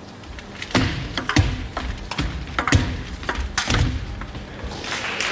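Table tennis rally: quick sharp clicks of the celluloid ball off the paddles and table, with a heavy foot stamp on the hall floor at each stroke. The rally ends about four seconds in, and applause starts near the end.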